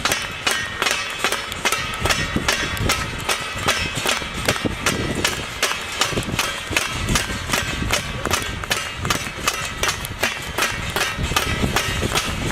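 Fast, steady percussion: sharp beats at about four to five a second, keeping an even rhythm.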